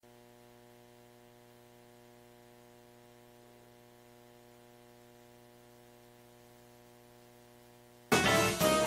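Faint, steady mains hum from an electric guitar's amp-simulator signal chain. About eight seconds in, loud band music with drums suddenly starts.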